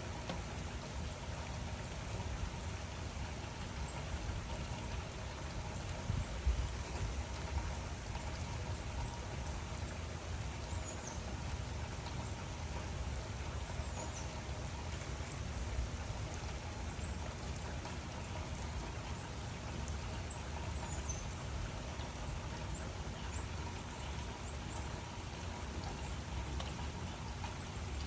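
Steady rain falling: an even, unbroken hiss with a low rumble beneath it, and a brief louder spot about six seconds in.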